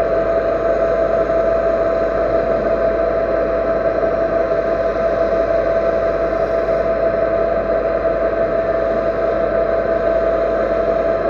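A machine tool running steadily while machining the repaired servo motor shaft, a constant whine over an even mechanical noise.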